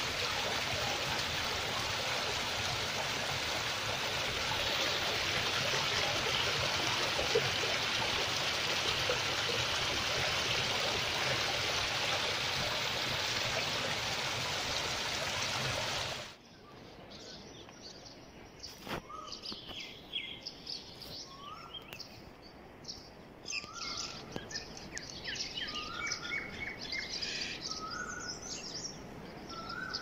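Small mountain stream splashing down over rocks in a steady rush. About sixteen seconds in it cuts off abruptly to birds chirping, with many short high chirps and a short rising call repeated every second or two.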